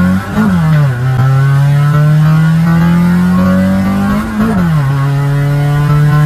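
A modified car's engine accelerating hard through the gears, heard from inside the cabin. The revs climb and drop with an upshift about half a second in, then climb steadily and drop with a second upshift about four and a half seconds in, before rising again.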